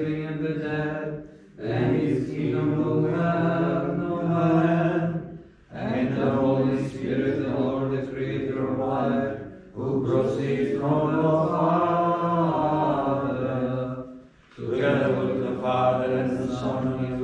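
Orthodox liturgical chanting, sung in sustained phrases of about four seconds with brief pauses between them.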